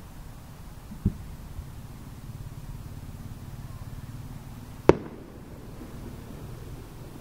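Distant fireworks over a steady low rumble: a dull low thump about a second in, then a single much louder, sharp bang of an aerial shell bursting about five seconds in, with a short rumble after it.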